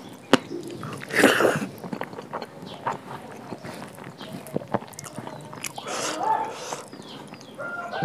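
Close eating sounds of a person chewing food: wet mouth clicks scattered throughout, with two louder crunchy bursts, about a second in and again about two seconds before the end.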